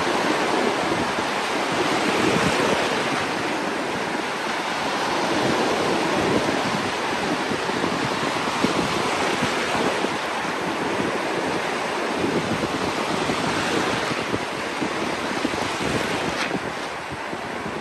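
Ocean surf breaking and washing on a beach, a continuous rushing that swells and eases with each wave, with wind buffeting the microphone.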